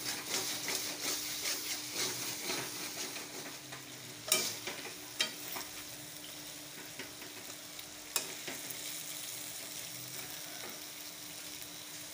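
Chicken curry masala sizzling and frying in a metal kadhai as it is stirred with a steel spatula. A few sharp scrapes of the spatula against the pan stand out, the loudest about four seconds in and others at about five and eight seconds.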